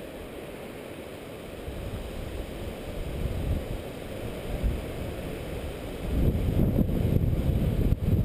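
Wind buffeting the camera microphone, a gusting low rumble that grows stronger about six seconds in.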